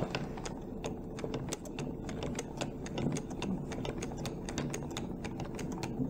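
Hand-cranked wooden automaton running: its wooden cams and followers on a metal crank shaft clack in a quick, uneven run of clicks, several a second.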